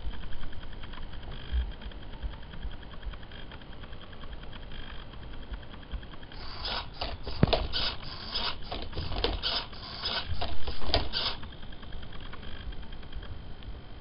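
Hobby servo motors of an Arduino-driven Rubik's cube robot whirring in about a dozen short bursts, roughly two a second, from about six seconds in for some five seconds.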